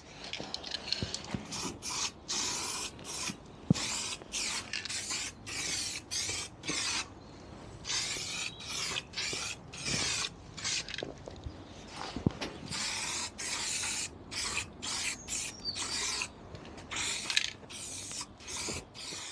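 Aerosol can of acid etch primer spraying in many short bursts of hiss with brief pauses between them, and an occasional sharp click.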